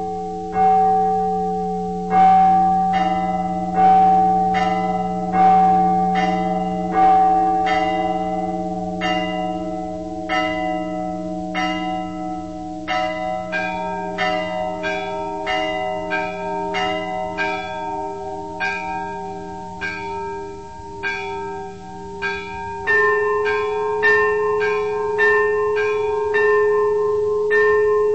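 Church bells ringing in the Russian Orthodox style. A big bell is struck about every one and a half seconds over a lingering hum, and from about halfway through smaller bells join in quicker, interlocking strokes.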